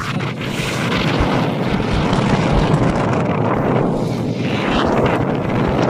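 Strong wind blowing across the microphone: a steady rushing with an uneven low rumble of gusts.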